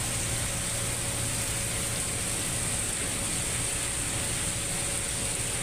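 Steady running noise of a vehicle: a constant low engine hum under an even hiss, with no change in pitch or speed.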